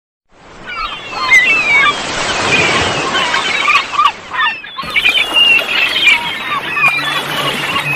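Gulls calling over the wash of surf, fading in and briefly cut off partway through. A low steady note of music enters near the end.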